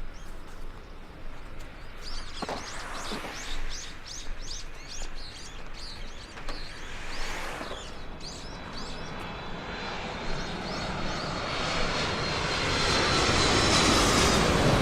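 Small birds chirping in quick series, then an aircraft approaching overhead: a rushing engine noise with a high steady whine that grows steadily louder over the last few seconds.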